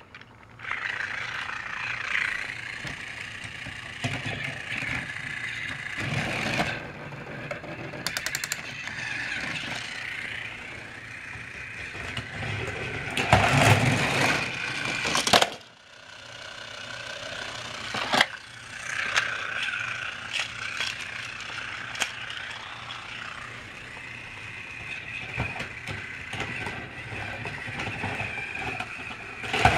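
Battery-powered Trackmaster toy train running on plastic track: a steady small-motor whir with wheel clatter and scattered clicks and knocks, louder about halfway through and again near the end.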